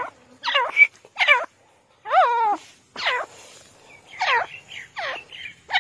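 White grey francolin (desi teetar) calling: a run of about eight short, harsh calls, each sweeping down in pitch, with one longer call about two seconds in that rises and then falls.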